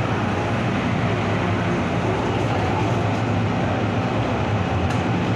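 Metro-Cammell-built MTR M-Train electric multiple unit running at speed through the Island Line tunnel. A steady rumble of wheels on rail with a low hum from the traction equipment, heard from inside the car.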